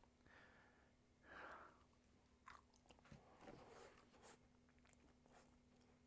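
Near silence with faint soft crunches and clicks of a roasted chestnut being chewed.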